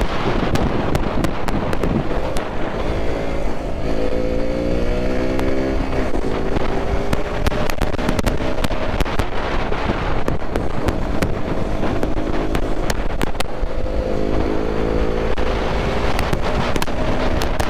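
Single-cylinder KTM motorcycle engine accelerating hard under the rider, its pitch climbing twice through the gears, with heavy wind rushing and crackling on the helmet microphone.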